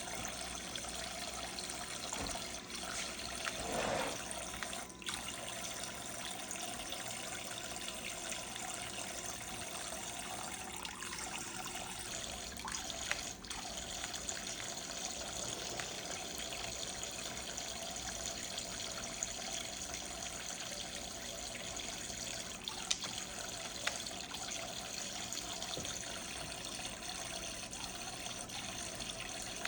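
Water running steadily from a toy play sink's faucet into its basin, with a few light knocks about five, thirteen and twenty-three seconds in.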